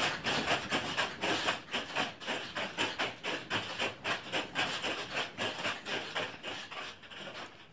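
Wooden office furniture, shelves and doors rattling in a fast clatter of knocks, several a second, as the building shakes in an earthquake. The clatter eases off near the end.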